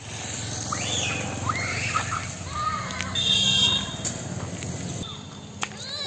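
Young children calling out in high, rising and falling voices, with a brief high squeal a little after the middle, over a steady low rumble.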